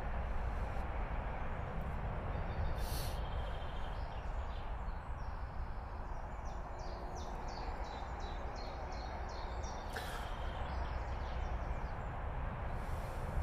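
Steady low rumble of motorway traffic. A small bird sings a quick run of short high notes from about four to ten seconds in.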